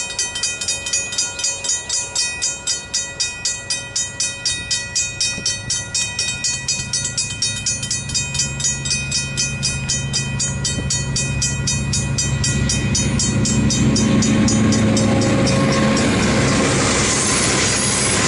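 Griswold mechanical level-crossing bells ringing in quick, even strokes. The rumble of an approaching diesel freight train builds under them from about halfway. Near the end, two KiwiRail DL-class diesel locomotives pass over the crossing and drown out the bells.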